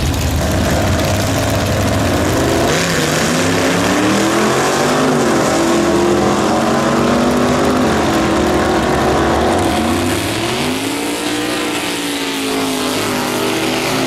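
Vintage gasser drag cars launching and accelerating hard down the strip: a low engine rumble, then about three seconds in loud engine revving whose pitch climbs, drops back at gear changes and climbs again.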